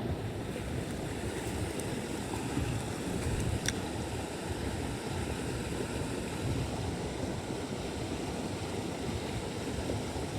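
Small stream's water rushing steadily, an even low rush with no break.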